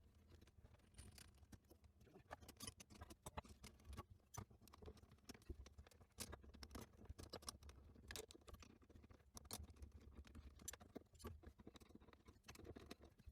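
Near silence with faint, irregular small clicks and taps of metal hand tools tightening the bolts of a drain saddle clamped on a sink drain pipe.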